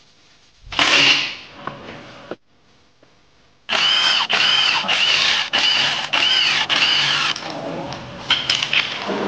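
Cordless impact driver backing out motorcycle engine crankcase bolts in about six short bursts, its motor pitch rising and falling within each burst. Before it, a brief clatter about a second in.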